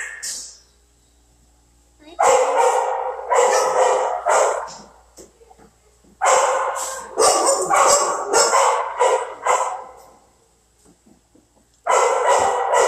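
Kennelled shelter dogs barking in three bouts of rapid barks, with short pauses between them.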